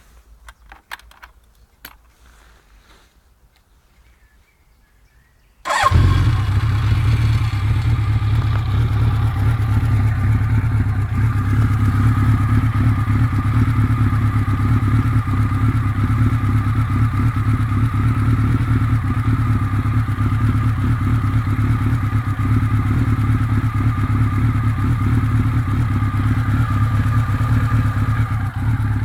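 A few light clicks, then about six seconds in a Honda CB900F Bol d'Or's air-cooled inline-four engine starts warm, catching at once, and settles into a steady idle. The freshly rebuilt engine idles without rattling.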